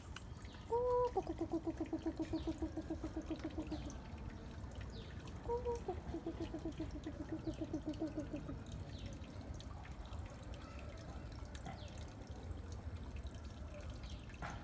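Backyard fowl calling twice: each call is a short held note followed by a quick run of clucks lasting about three seconds, the second starting about five and a half seconds in.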